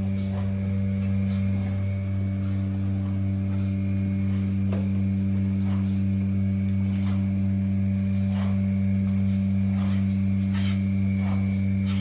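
Portable bucket milking machine running: its vacuum pump gives a loud steady hum, with faint clicks about once a second from the pulsator.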